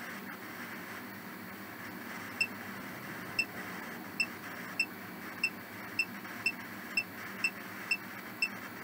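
Ghost-hunting phone app playing a steady hiss of static, with short high beeps about twice a second starting a couple of seconds in.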